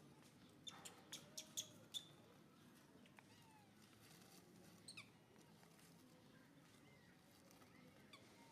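Baby monkey giving a quick run of about five short, high squeaks about a second in, then two more around five seconds.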